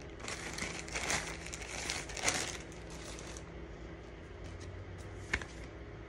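Plastic packaging crinkling and rustling as it is handled, for about three and a half seconds, then a single sharp click about five seconds in.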